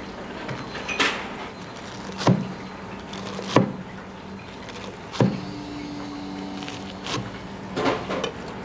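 Kitchen clatter: about six separate sharp knocks and clacks of utensils and cookware, spaced a second or more apart, over a steady low hum. A brief steady tone sounds in the middle.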